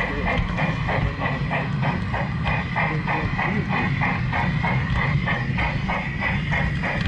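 LGB garden-railway train running on its track, heard from a camera riding on board: a steady motor and wheel whine with a regular pulsing beat of about four a second.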